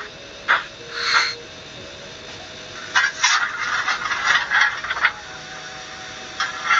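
Sound effects from the DCC sound decoder of a Fleischmann HO-scale SBB model locomotive, playing through its small onboard speaker. A few evenly spaced hissing bursts come first, then a denser, busier run of hissing bursts about three seconds in that lasts about two seconds.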